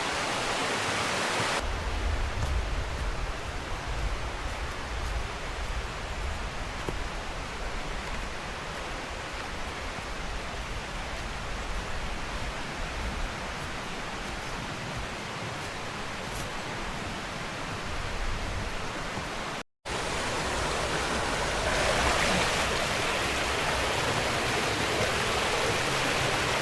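Steady rushing of a mountain stream and its falls, an even hiss of water. A low rumble sits under it for much of the first part, the sound drops out for a moment about twenty seconds in, and the water is louder after that.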